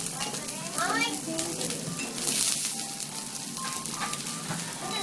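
Kobe beef steaks sizzling on a hot teppanyaki griddle, a steady frying hiss of meat and fat on the steel plate.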